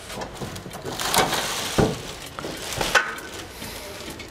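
Handling sounds from unpacking tiller parts in a wooden shipping crate: three sharp knocks with rustling in between.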